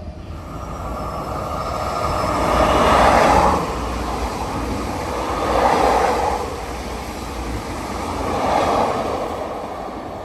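Train passing along the tracks, a loud rushing and rolling noise that swells and eases three times before fading away near the end.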